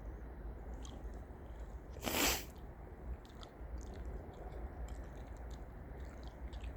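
Freight train running with a steady low rumble and scattered light crackling, with a short loud hiss about two seconds in.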